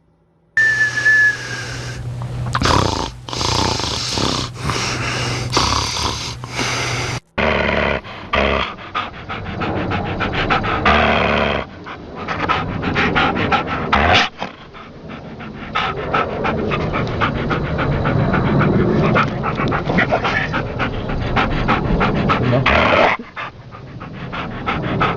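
Rat terrier snoring, a rattling, person-like snore made of rapid rasping pulses, with two brief cuts to silence early on.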